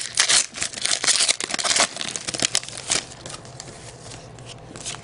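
A trading card pack wrapper crinkling and tearing as it is opened, dense and crackly for about three seconds, then quieter handling with a few light clicks.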